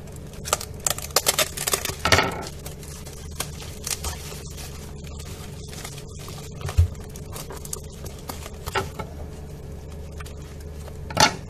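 Scissors cutting through a plastic bubble-wrap mailer, a quick run of crackling snips in the first couple of seconds, then bubble wrap crinkling and rustling as it is handled, with a soft thump about two-thirds in and a sharp crackle near the end.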